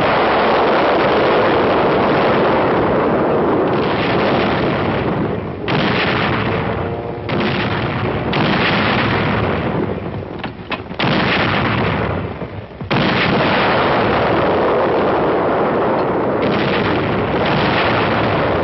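Rocket artillery firing in salvos: a continuous rushing roar of launches, with fresh blasts breaking in several times, about 5.5, 7, 8, 11 and 13 seconds in. The sound is heard through a muffled, narrow-range old film soundtrack.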